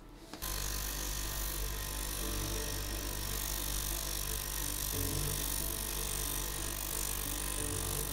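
Electric leather edge-finishing machine running, its spinning wheel working the edge of a leather strap. It makes a steady low motor hum under a loud, even hiss, starting about half a second in.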